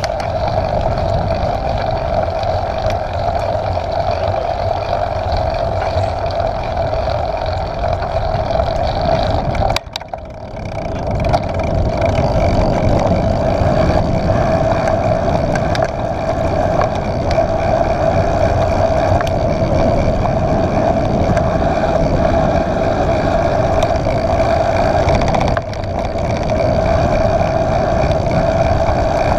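Mountain bike rolling fast downhill on asphalt: wind rushing over the handlebar camera's microphone and knobby tyres humming steadily on the road. The sound dips briefly about ten seconds in.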